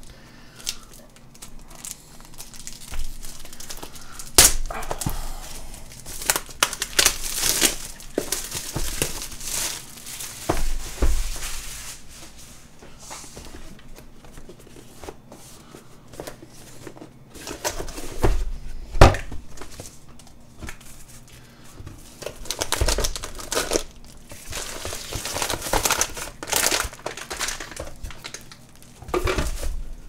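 Unboxing a power supply: the cardboard box and its plastic and foam packaging rustle and crinkle in irregular bursts. There are a few sharp knocks, and the loudest comes a little past the middle.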